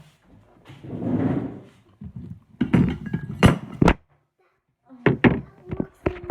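A series of sharp knocks and thunks from tableware being handled on a table, with a short rushing noise about a second in. The knocks come in two clusters, the later ones after a brief quiet gap.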